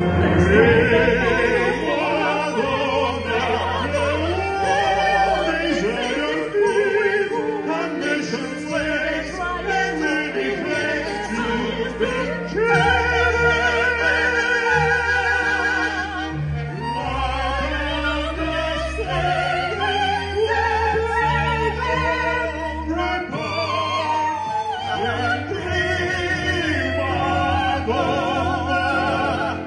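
A woman and a man singing a duet with strong vibrato into microphones, first one voice then the other and finally together. Behind them, live string accompaniment carries sustained low bass notes.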